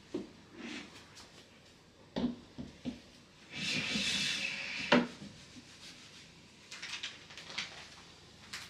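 Drawer of an IKEA HAUGA desk sliding in its runners with a rubbing scrape for about a second and a half, ending in a sharp knock as it reaches its stop. Light knocks and taps of furniture handling come before and after.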